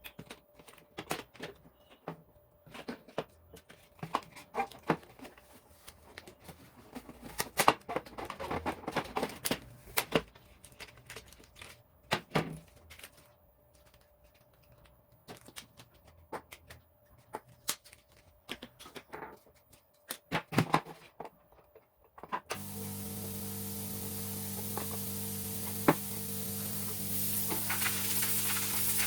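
Scattered clicks and knocks of parts being handled and worked on a microwave oven. About three-quarters of the way in, a steady electrical hum with hiss starts suddenly.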